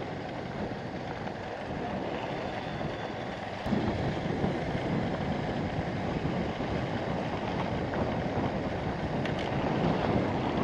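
Bajaj Avenger 220's single-cylinder engine running as the motorcycle is ridden along an unpaved road, under a steady rush of wind on the microphone. It gets louder about a third of the way in.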